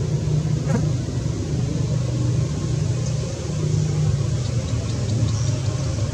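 A steady low rumble, with a single faint click under a second in.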